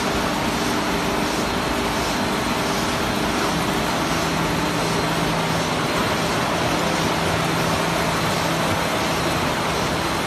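Steady running noise of an automatic facial-tissue bag-packaging line and its conveyors, with a faint regular pulse a little faster than once a second. A low steady hum comes in about three and a half seconds in and fades near the end.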